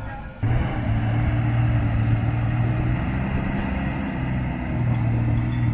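Engine of an off-road 4x4 running steadily under load on a slope. It comes in abruptly about half a second in, and the revs sag briefly around the middle before holding again.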